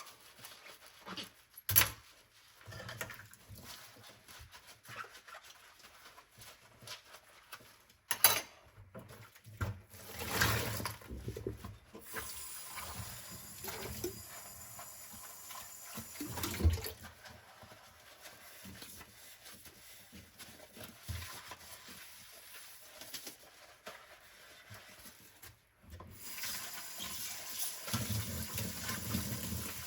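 Hand-washing dishes at a kitchen sink: a few sharp clinks and knocks of dishes being handled, with quieter splashing between them. A tap runs steadily from near the end.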